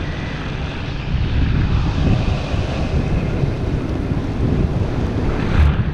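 Wind buffeting an action camera's microphone in paragliding flight: a steady, rough low rumble of airflow with no engine.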